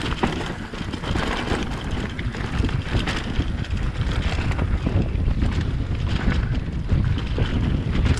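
Mountain bike riding down a dirt trail: steady wind noise on the camera's microphone over the rumble of tyres on the dirt, with frequent small knocks and rattles from the bike over the bumps.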